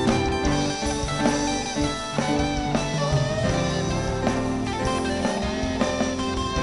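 A gospel band playing an instrumental passage: guitar over drums and bass, steady and unbroken.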